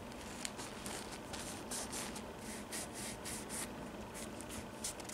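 Fingertips rubbing and scratching across the knitted uppers of a pair of sneakers: a faint, dry, scratchy brushing in quick short strokes, about three or four a second.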